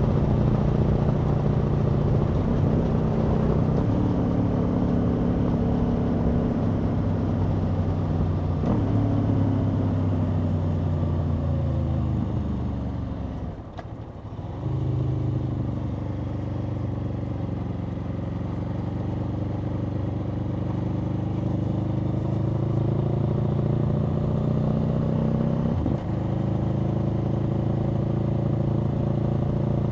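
Aprilia Tuono V4's V4 engine running under way, its pitch stepping with gear changes. About halfway through the throttle closes: the engine note falls and quietens briefly, then picks up again and climbs slowly, with another quick shift near the end.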